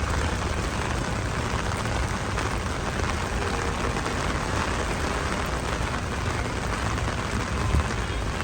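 Heavy rain falling steadily, with a deep, continuous low rumble under it.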